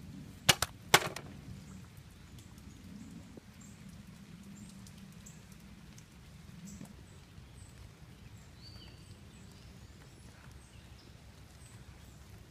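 Two sharp cracks about half a second apart near the start, the second ringing briefly, then quiet outdoor background with faint bird chirps.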